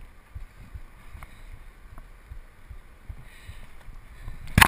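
Faint rustling of wind and hands on a rope swing close to the microphone, with a few light ticks and a single sharp thump near the end.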